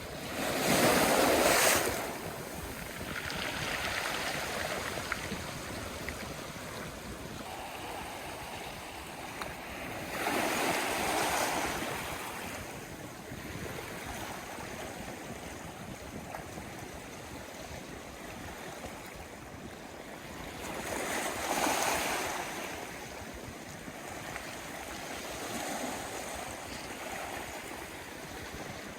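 Sea waves washing onto the shore in a steady wash, with a louder wave breaking about every ten seconds, three times, and smaller swells between.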